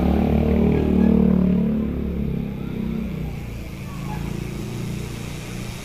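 A motorcycle engine passing close by, loudest about a second in and fading away over the next couple of seconds.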